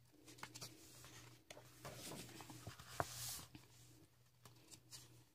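A coloring-book page being turned by hand: faint paper rustling and light taps, with a soft swish of the page about three seconds in.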